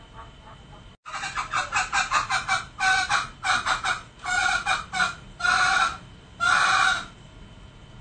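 Male green junglefowl calling: after a brief dropout about a second in, a quick run of short, clipped notes, then three longer, louder calls near the end.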